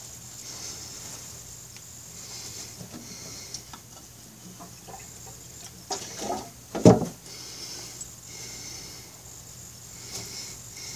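A cloth rag rubbing and rustling over a metal brake caliper piston as it is wiped clean with acetone, with small handling clicks. Near seven seconds a few knocks, the loudest a single sharp knock.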